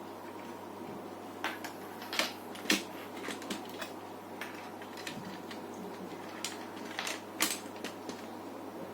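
Irregular small clicks and taps of laptop parts and tools being handled and fitted during reassembly, in two clusters, over a steady electrical hum with a faint constant tone.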